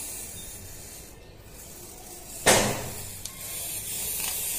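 Aerosol spray-paint can hissing as paint is sprayed in spurts. About halfway through there is a short, loud burst, and the hiss is steadier and louder near the end.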